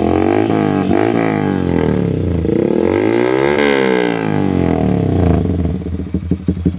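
Yamaha Vixion R's single-cylinder engine revved through a Pro Liner TR1 full-system aftermarket exhaust. It gives a few short throttle blips, then one longer rev that rises and falls about halfway through, and drops back to a pulsing, uneven idle near the end.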